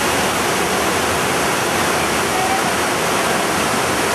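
Waterfall: a steady, loud rush of white water pouring and splashing over rock ledges.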